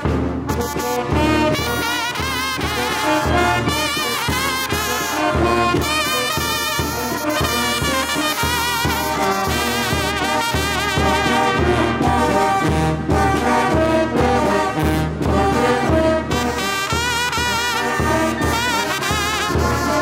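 Small Guerrero wind band playing a jarabe: trumpets, clarinet and alto saxophone carry the melody with a wavering vibrato over a steady bass drum beat.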